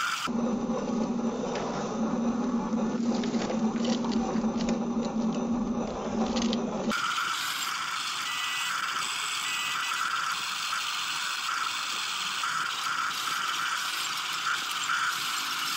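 Radio-controlled toy excavator's small electric motors and plastic gearboxes whirring and buzzing, with ratchet-like clicking as the arm and tracks move. The sound changes about seven seconds in, from a lower hum with clicks to a higher steady whine.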